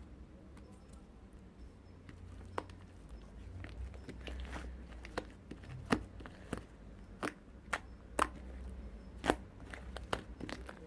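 Irregular sharp clicks and taps, about a dozen, coming more often in the second half, over a steady low hum.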